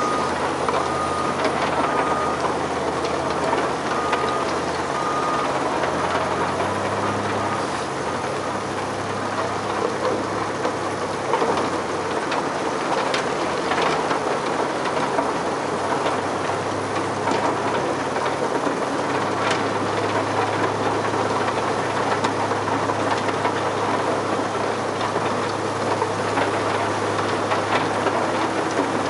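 Extec S-5 mobile soil screener and a Cat 950H wheel loader running, steady diesel machinery noise. The loader's engine note shifts as it works. A reversing beeper pulses for the first few seconds, and a few sharp knocks come through.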